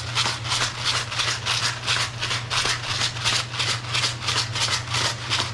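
Black pepper being dispensed over the pan in quick, even rasping strokes, about four or five a second, over a steady low hum.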